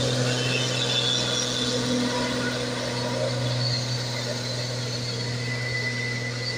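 Loaded cargo truck's diesel engine pulling hard up a steep grade, passing close and then moving away, its steady low hum slowly fading.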